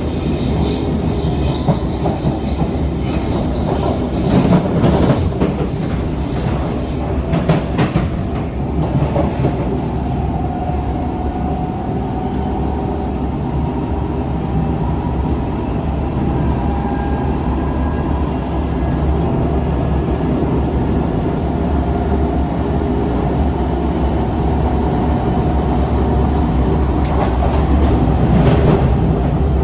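Siemens C651 MRT train running on the rails: a steady rumble with bursts of knocking and clattering about 4 to 9 seconds in and again near the end, and a faint steady tone in the middle. The knocking is the weird noise the owner cannot place, suspecting something loose at the bogie or a brake problem.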